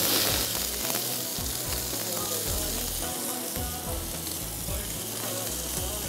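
Lemon juice sizzling in a hot non-stick frying pan, hissing strongest in the first moment and then settling into a steady sizzle as it reduces for a caper butter sauce.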